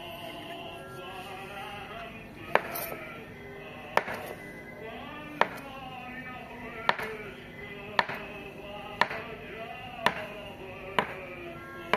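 A large kitchen knife chopping through a roll of fresh pasta dough: about nine sharp knocks of the blade hitting the countertop, roughly one a second, starting about two and a half seconds in, over background music.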